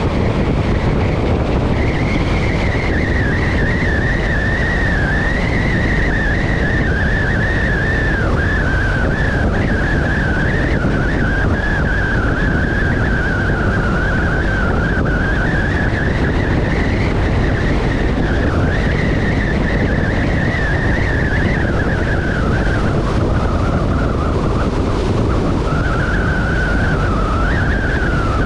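Motorcycle on the move at steady road speed: heavy rush of wind and road noise with a high whine running through it that wavers a little in pitch.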